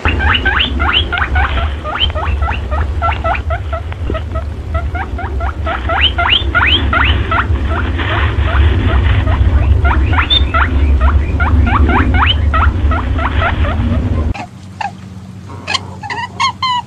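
Lure recording sold as a perentie caller: dense, rapid squeaky chirps, each sliding down in pitch, over a steady low rumble. About fourteen seconds in it cuts abruptly to a different recording of spaced chirps, a few a second.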